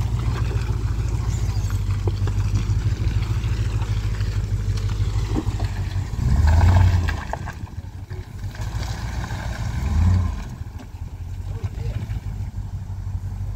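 Range Rover Classic's 3.9-litre V8 engine running steadily under load as it crawls off-road through mud, with two brief surges of revs, one about six seconds in and another near ten seconds.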